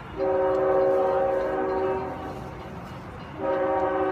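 Long Island Rail Road diesel train's horn sounding a chord of several steady tones: one long blast of about two seconds, then a second long blast starting about three seconds in and still going at the end.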